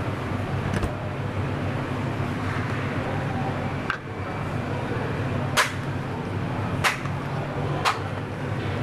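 A steady low hum with three sharp clicks in the second half, about a second apart.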